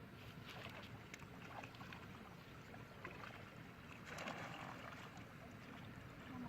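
Faint water sounds: low sloshing and trickling with scattered small clicks, and a louder splash about four seconds in.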